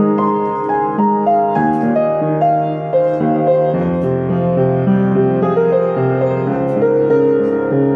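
Upright piano played with both hands, a continuous flow of chords and melody with notes held and overlapping.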